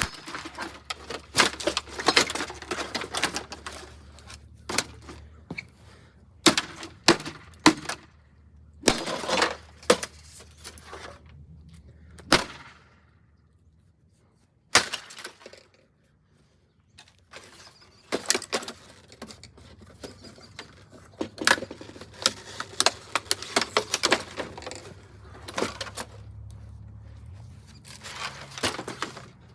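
A mini fridge's plastic shell and foam insulation being broken apart: repeated sharp knocks and cracks, with stretches of crackling and tearing, and a quiet pause about halfway through.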